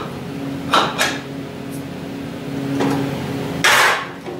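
Metal clanks and knocks from handling parts on a cast-iron table saw, with a steady low hum underneath. Two lighter knocks come about a second in, another near three seconds, and the loudest clank comes near the end.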